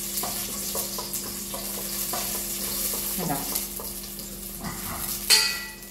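Whole spices (cloves and cinnamon) sizzling in hot butter in an enamel pot while a spoon stirs them, with faint scrapes and taps. About five seconds in comes a ringing metal clink, the loudest sound. A steady low hum runs underneath.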